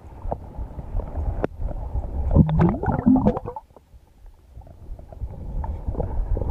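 Muffled rumbling and sloshing of water, picked up by a camera held underwater, with scattered small knocks. A short muffled pitched sound comes about two and a half seconds in, and the water noise dips briefly about a second later.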